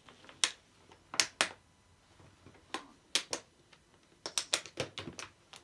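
Clear plastic water bottle batted and knocked about on carpet by a cat, giving sharp, irregular plasticky clicks and knocks, with a quick run of them in the last second and a half.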